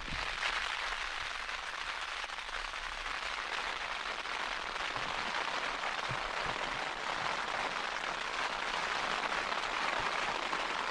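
Rain pattering steadily on a tent's flysheet, heard from inside the tent as a dense patter of countless small drops. It starts abruptly.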